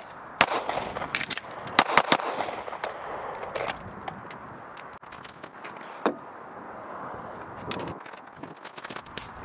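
9mm Shadow Systems DR920 pistol firing: one shot about half a second in, then a pause of just over a second for the reload, then three shots in quick succession. Sparse crunching footsteps in snow follow.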